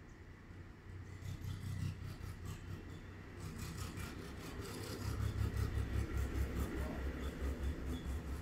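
Rubbing and handling noise on a handheld phone's microphone, over a low rumble that gets louder and pulses about five seconds in.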